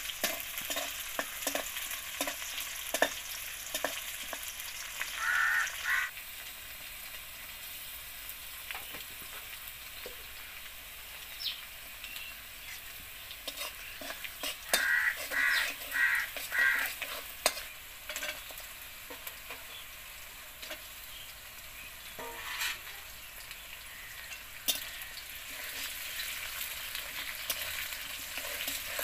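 Sliced onions and chillies sizzling in hot oil in a wok as they are stirred and scraped with a metal spatula, with sharp clinks of the spatula against the pan.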